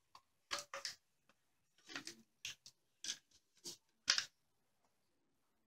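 Sharp clicks and clacks of a CZ Scorpion Evo 3 S1 pistol being handled, about seven of them over four seconds, the loudest a little after four seconds in.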